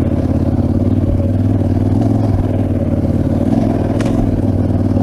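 Large adventure motorcycle's engine running steadily while ridden, heard on board, with one sharp click about four seconds in.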